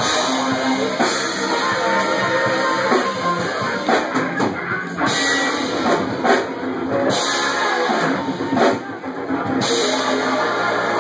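Live rock band playing: drum kit and electric guitars with bass, loud and dense, recorded through a phone's microphone.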